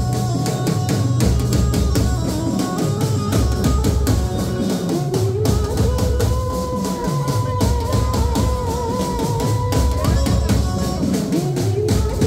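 Live street band playing: drums and cymbals beat a steady, dense rhythm under an electronic keyboard melody that slides up into long held, wavering notes.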